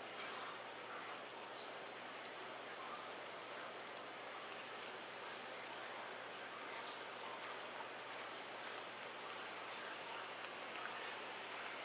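Strips of chruściki (angel wing) dough deep-frying in hot canola oil: a steady sizzle with a few small pops.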